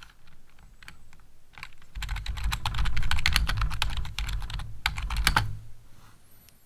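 Typing on a computer keyboard: a few scattered keystrokes, then fast, continuous typing from about two seconds in that stops near the end.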